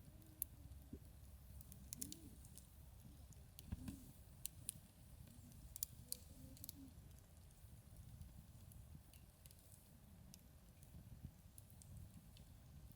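Wood campfire crackling faintly, with scattered sharp pops at irregular intervals over a low, soft rumble.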